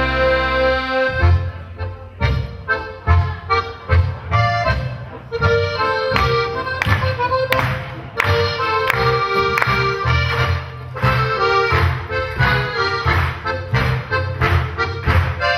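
Traditional Tyrolean folk music played live by a band. A held chord breaks about a second in into a lively tune over a steady, bouncing bass beat.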